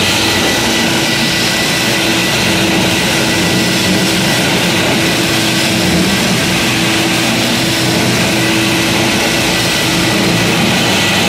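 Daesung Hitech D-7 180 electric floor grinder running steadily as its head grinds the floor, with a dust-extraction vacuum drawing through the attached hose. A loud, even machine noise of motor hum and grinding, with a thin steady whine on top.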